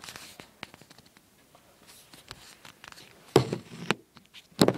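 Handling noise: faint rustling and light clicks as a padded mailer is handled, then a few sharper knocks in the last second and a half.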